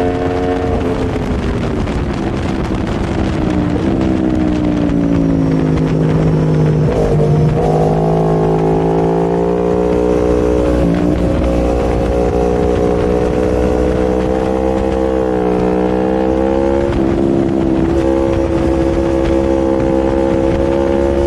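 Aprilia Tuono V4 motorcycle engine running hard on track, heard close up from the bike with wind noise. The engine note falls over the first few seconds, steps up sharply about seven seconds in, then holds fairly steady with small dips as the revs change.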